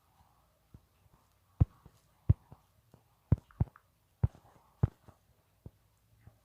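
Irregular sharp taps on a touchscreen, about seven loud ones among fainter ones, picked up as dull knocks through the device's body while drawing.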